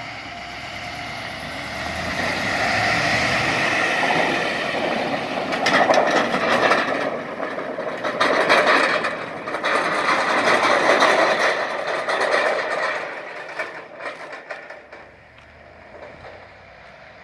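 Ford F-250 pickup towing a loaded flatbed trailer drives past on a gravel road: engine and tyre noise with the trailer rattling. It builds over the first few seconds, is loudest in the middle and fades away near the end.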